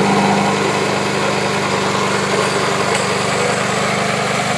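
Engine of a remote-controlled, self-propelled flail mower running steadily at an even pitch as the machine works.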